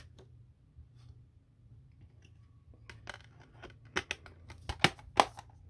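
Metal Blu-ray steelbook cases and their plastic disc trays being handled: a few faint clicks, then a quick run of sharp clicks and knocks in the last two and a half seconds, the loudest near the end.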